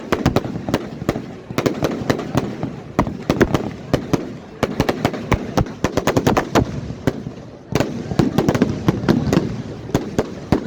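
Fireworks going off in rapid volleys of sharp bangs and crackles, several a second, briefly easing about three quarters of the way through before picking up again.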